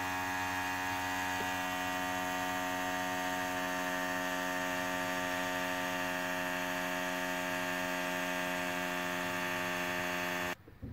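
Philips PerfectDraft beer tap's Peltier cooling unit running after a capacitor repair, its fan motor giving a steady electric hum that stops abruptly near the end. The machine is working again.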